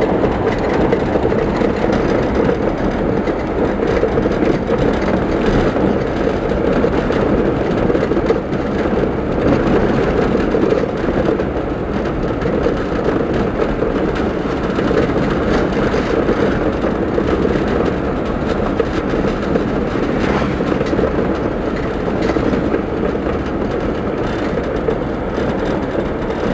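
Steady road and engine noise of a moving car, heard from inside the cabin, with tyres running on asphalt.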